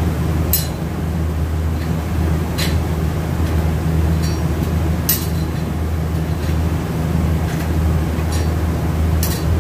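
Steady low hum in a workshop, with a few sharp metallic clinks as automatic transmission clutch plates and parts are handled on the bench.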